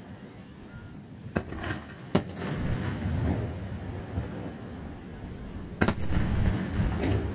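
Aerial firework shells bursting: three sharp bangs, two close together in the first couple of seconds and a third near six seconds. Each is followed by a low rumbling echo.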